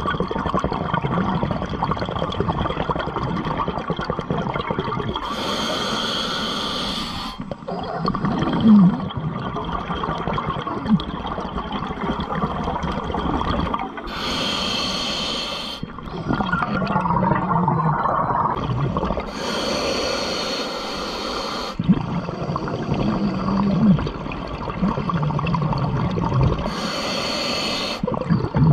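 Underwater scuba breathing: four hissing inhalations through the regulator, each about two seconds long and some six seconds apart, with bubbling, gurgling exhalations between them.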